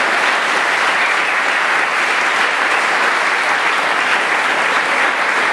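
Audience of school pupils applauding steadily.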